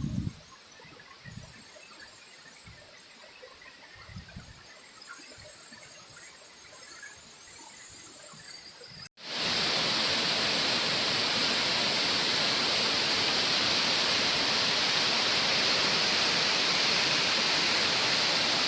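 Waterfall rushing steadily and loudly, cutting in suddenly about nine seconds in; before that, only a faint hiss with a few soft low thumps.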